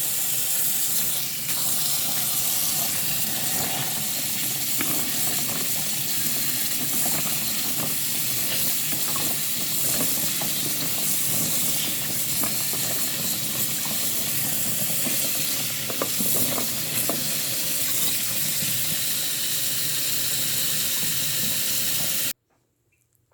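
Food frying in hot oil in a pan: a steady sizzle with scattered small crackles and pops, which cuts off suddenly near the end.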